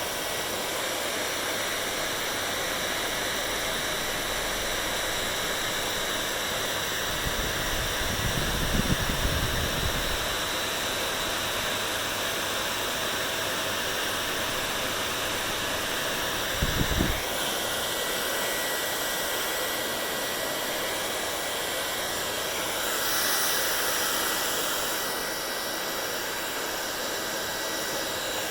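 Hand-held hair dryer blowing steadily: a wide rushing hiss with a thin high whine. A few low bumps break in, a cluster about a third of the way in and one more a little past halfway, and the hiss changes colour slightly as the airflow shifts.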